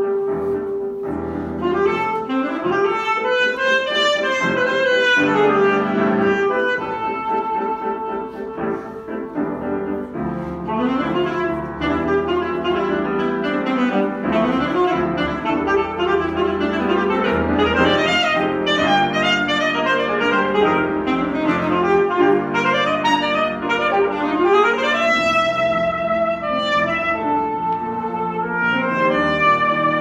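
Alto saxophone and grand piano playing a classical duet. The saxophone holds one long note at the start, then plays quick rising and falling runs over the piano's chords.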